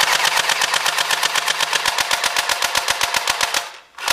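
Double Eagle G36C electric airsoft rifle firing a long full-auto burst of evenly spaced shots, about a dozen a second, that stops near the end. The rifle's battery is not fully charged, and the shots are barely reaching the target.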